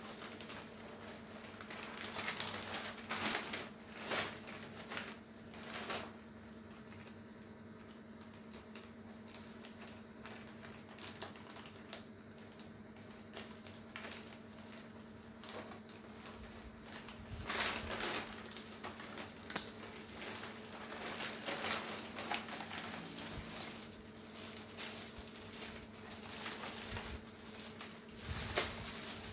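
Plastic courier mailer bag and clear plastic wrapping crinkling and rustling in irregular bursts as a parcel is cut open with scissors and unpacked by hand.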